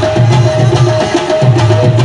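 Qawwali music: harmonium repeating a short melodic figure over a steady, driving hand-drum rhythm.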